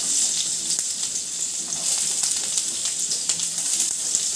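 Freshly added onions sizzling in hot oil in a frying pan: a steady hiss with scattered small crackles and pops.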